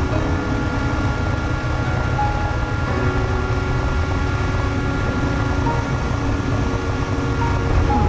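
FPV racing quadcopter's brushless motors whining steadily with wind rushing over the onboard camera; the pitch shifts near the end as the quad banks into a roll.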